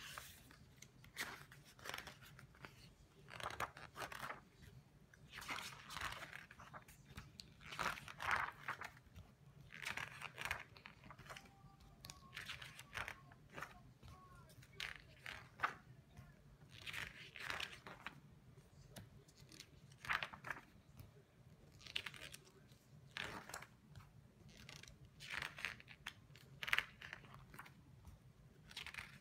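Glossy pages of a large illustrated book being turned one after another, each turn a short crinkling rustle, every second or two, over a faint steady hum.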